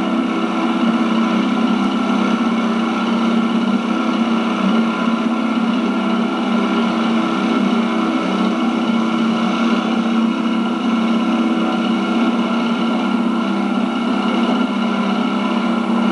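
Boat motor running at a steady speed as the flat-bottomed boat cruises across the water, a constant drone with no change in pitch.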